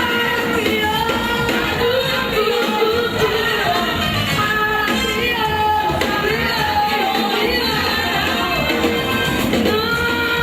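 Pop music with a singing voice, playing without a break.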